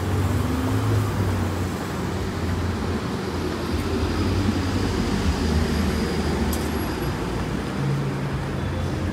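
City street traffic noise: a steady low hum of vehicle engines with a wash of road noise.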